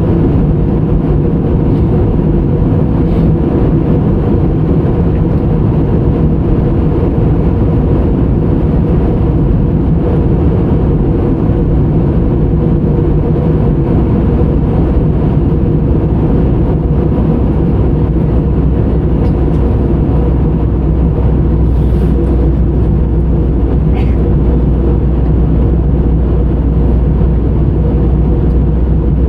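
Steady, loud drone of an airliner's jet engines and airflow heard inside the passenger cabin in flight, with a deep hum that grows stronger about halfway through.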